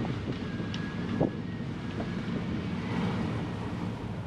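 Wind buffeting the microphone over the steady low drone of a sailboat motoring under way, with water rushing along the hull. A single short thump about a second in.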